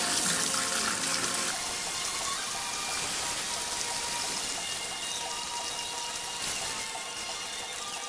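Salon shampoo-bowl spray hose running, a steady hiss of water spraying over a plastic processing cap and splashing into the basin.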